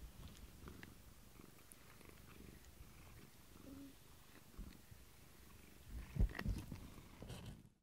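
Domestic cat purring steadily while being brushed, with a few louder low bumps about six seconds in.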